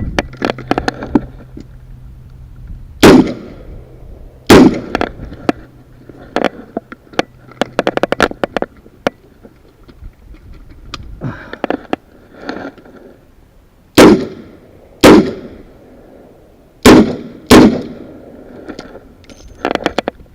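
Smith & Wesson Model 66 revolver firing on a timed shooting stage. The loudest shots come in pairs: one pair about three to five seconds in, and two more pairs late on. Many fainter pops and clicks fall between them.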